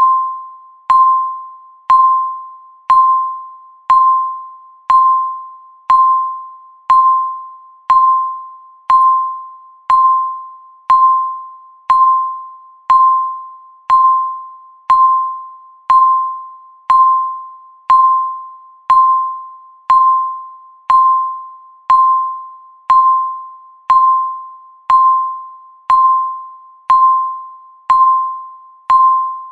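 Countdown timer beep sounding once a second: a single clear electronic tone that starts sharply and fades away before the next beep, marking each second as the timer counts down.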